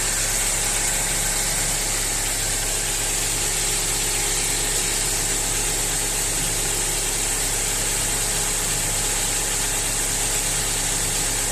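Toyota Noah petrol engine idling steadily, just after its spark plugs have been replaced to cure a misfire and knocking caused by current leaking from the plugs and leads.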